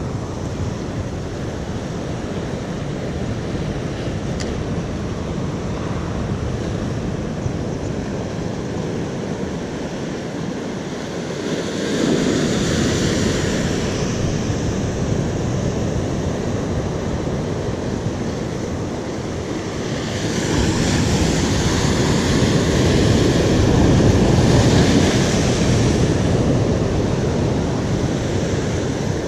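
Sea waves breaking on a rocky shore: a steady rush of surf that swells louder about twelve seconds in and again for several seconds from about twenty seconds in.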